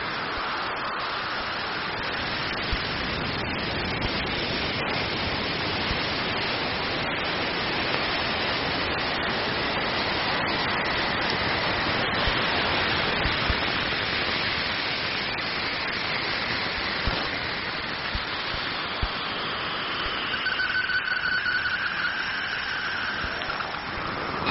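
Steady static-like hiss from a space sound recording, a sonification of data presented as a sound from the universe; faint whistling tones come in about twenty seconds in.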